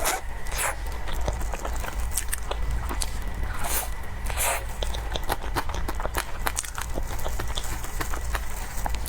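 Close-miked chewing of soft cake: many small wet mouth clicks and smacks throughout, with a few brief hissing swishes, over a steady low hum.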